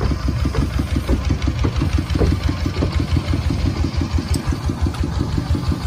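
An engine running steadily with a fast, even chug of about eight beats a second.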